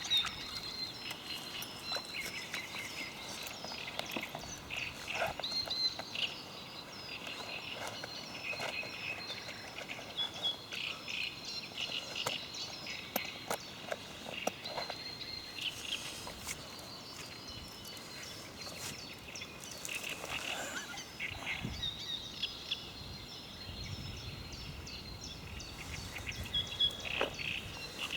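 Several small birds singing, a steady run of short high chirps and trills over a soft hiss, with a few faint clicks.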